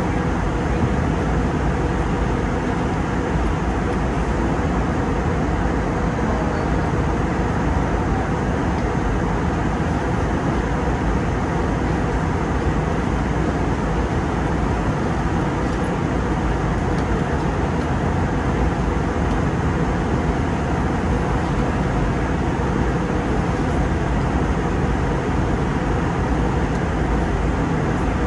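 Steady cabin noise of an Airbus A320neo in flight: a low, even rush of airflow and engine hum heard inside the cabin.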